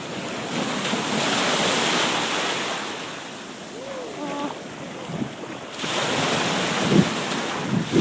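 Ocean surf washing in twice, a rushing swell about a second in and again near the end, with wind buffeting the microphone.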